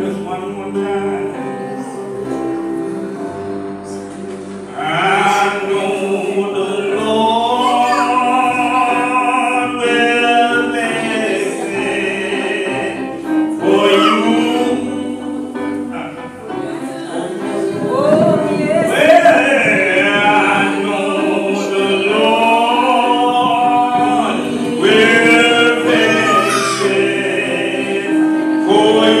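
Gospel singing: voices with wide vibrato over held instrumental chords, growing louder and fuller from about five seconds in.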